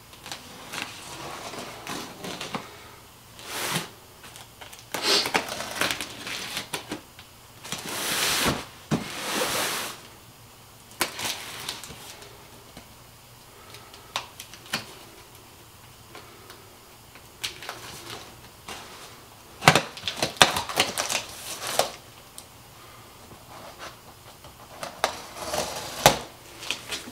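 Packing tape on a large cardboard box being slit with a blade and peeled away: bursts of scraping and tearing noise, some lasting a second or two, with a few sharp clicks about two-thirds of the way through as the cardboard flaps are worked loose.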